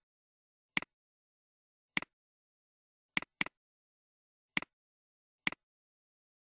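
Computer mouse clicks: six sharp clicks, each a quick press-and-release double tick, two of them in quick succession about halfway through.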